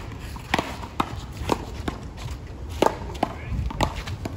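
Paddleball rally: a rubber ball cracks sharply off solid paddles and a concrete wall, about six hits in quick, irregular succession.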